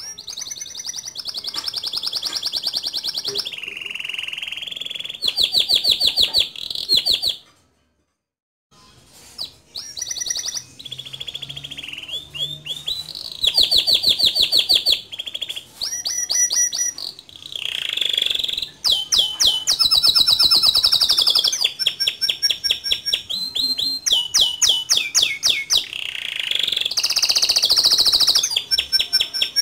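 Male domestic canary singing a loud, fast song of rolling trills and sharp repeated notes, broken once by a silence of about a second around eight seconds in.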